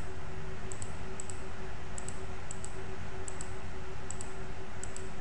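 Computer mouse button clicking at an even pace, about seven short press-and-release clicks, each roughly three-quarters of a second apart, as vertices are picked one at a time. Under them runs a steady electrical hum with hiss.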